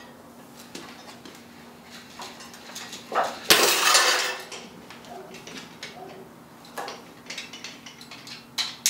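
A glue joint between two wood blocks gives way under a pulley load about three and a half seconds in, and the steel chain and weight plates drop with a loud metal clatter. Scattered light chain clinks follow. The clamped construction-adhesive bond has failed.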